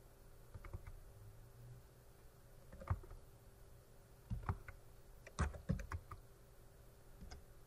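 Computer keyboard being typed on in short, scattered bursts of a few keystrokes with pauses between, the loudest clusters about four and a half and five and a half seconds in.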